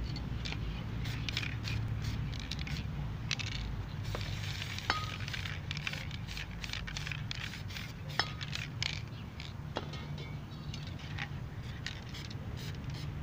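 Aerosol spray paint can spraying in many short bursts of hiss, with two sharp clicks about 5 and 8 seconds in, over a steady low background rumble.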